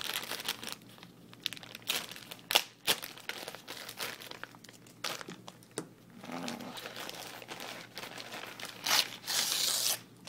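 A shipping package being opened by hand: irregular crinkling and crackling of the packaging with sharp snaps, and a longer tearing sound near the end.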